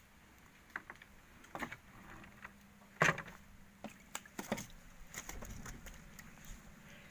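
Irregular knocks and light clatter of gear being handled in a small boat, the loudest knock about three seconds in, with a quick run of them around four seconds.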